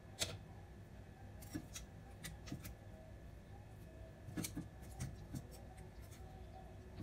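Metal kitchen tongs clicking and scraping against a saucepan and a plate as sauced chicken wings are lifted out and set down: a scatter of light clicks, the loudest about a quarter second in.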